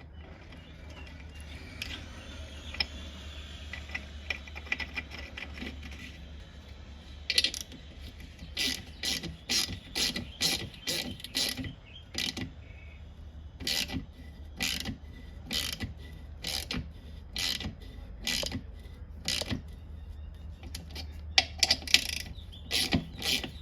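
Helicoil thread-repair tap turned by hand, cutting new threads into a stripped bolt hole in a transmission case. After a quiet start, about seven seconds in, a run of short scraping strokes begins, a little more than one a second.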